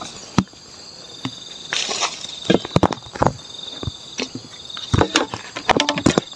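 Irregular knocks, scrapes and rustling of someone climbing a ladder up into a durian tree, with insects trilling steadily in the background.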